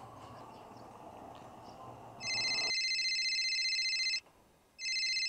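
Telephone ringing: two long, high-pitched trilling rings of about two seconds each, with a short gap between them, the first starting about two seconds in after faint hiss.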